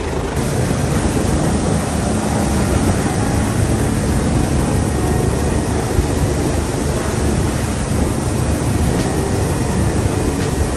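Helicopter hovering low, its rotor and turbine noise loud and steady.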